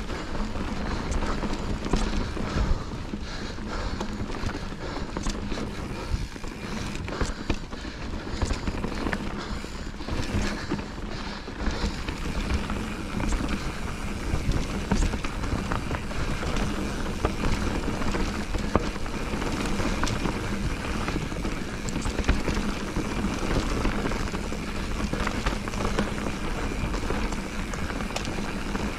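Steady wind rush and ground noise of a fast downhill run, with scattered clicks and rattles throughout.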